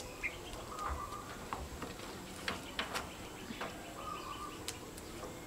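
Scattered soft snaps and rustles of fresh chive stalks being stripped and trimmed by hand, with a bird calling faintly twice.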